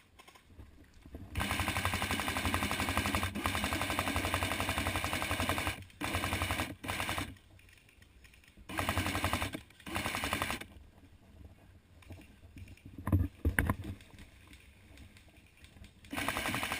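Airsoft gun firing on full auto: one long burst of about four seconds, then several short bursts of rapid clicks, with two or three sharp knocks in a lull near the end.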